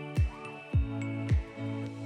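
Background music with a steady beat of low thumps a little under twice a second, under held chords and bell-like high notes.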